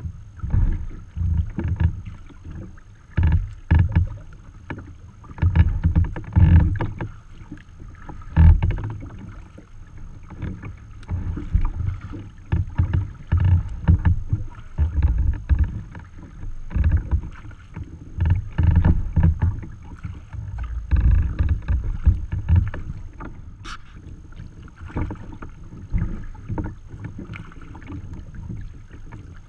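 Water lapping and splashing against the hull of a moving sea kayak, with wind buffeting the microphone in uneven gusts.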